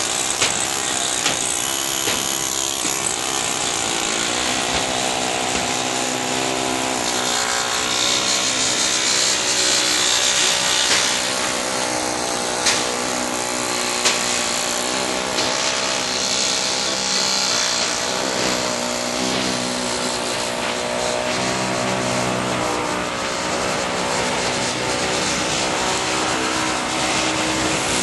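A motor-driven machine running steadily under a loud wide hiss, its pitch drifting a little, with a few sharp knocks.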